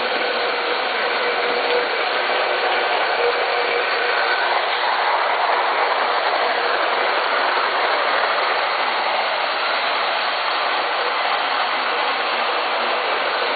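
Lionel model train running on its track: a steady rumble and whir of the motor and wheels, growing a little louder as it passes close by midway through.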